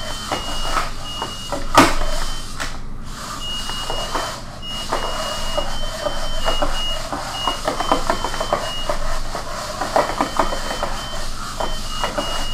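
A legged robot beeping in short high tones at two slightly different pitches, the beeps signalling its motion speed being slowed or sped up as it tracks a ball. Under the beeps, its leg servos and feet clatter and rasp unevenly as it walks.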